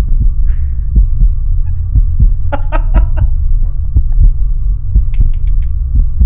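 Film sound design: a deep, pulsing, heartbeat-like throb over a steady hum. A man laughs briefly about two and a half seconds in, and a few sharp clicks come about five seconds in.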